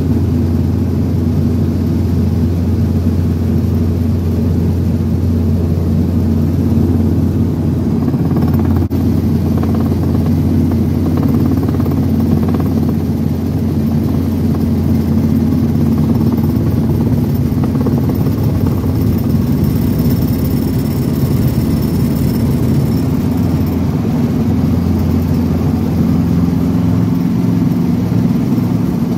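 Light helicopter's engine and rotor heard from inside the cabin: a loud, steady drone with a deep hum. It shifts slightly near the end as the helicopter settles onto a grass field.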